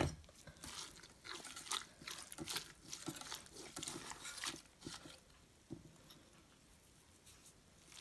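Hands pressing and squishing wet flower clusters in a metal pot: irregular wet crunching and rustling for about five seconds, then it stops.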